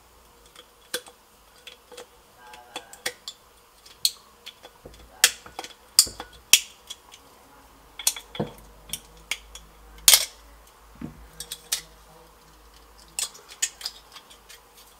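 Red-handled wire cutters snipping and clicking at the neck of a green glass bottle, cutting away leftover parts, with light clinks of metal against glass. The clicks come irregularly throughout, the sharpest around the middle.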